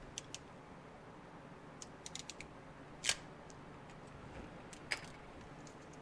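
Hand crimping tool clicking as it closes on a small wire terminal and is handled. The clicks are light and scattered, with a quick cluster about two seconds in and one louder click about three seconds in.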